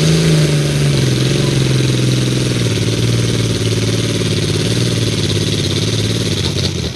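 Pulling tractor's diesel engine running hard under load as it pulls down the track. Its note sags in pitch in the first second as the load comes on, then holds steady and loud. The sound drops away abruptly near the end.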